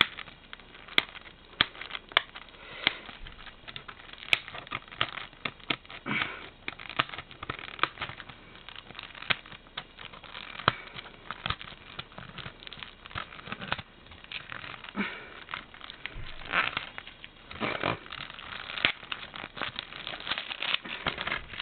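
Hands handling a DVD case and its plastic wrapping: irregular crinkling and crackling with many sharp clicks.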